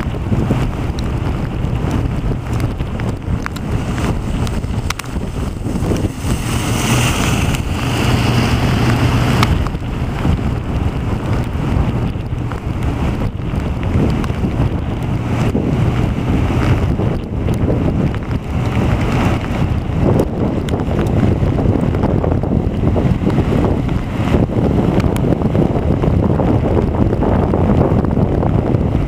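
Wind buffeting the microphone over the steady rush of ocean surf breaking on a sandy beach. A brief stretch of brighter hiss comes about seven seconds in and lasts a few seconds.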